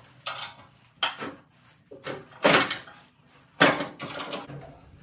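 Steel plow parts clanking and scraping against each other as the plow is fitted back onto its frame mount: several separate metal knocks, with a scrape about two and a half seconds in and the loudest clank about a second after it.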